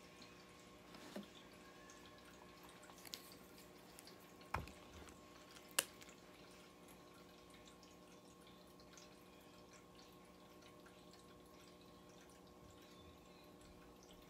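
Near silence: faint steady room hum, with four brief faint clicks spread over the first six seconds.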